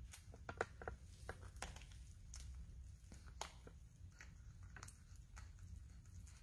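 Juvenile woodchuck chewing food close to the microphone: soft, irregular crunching clicks over a low steady hum.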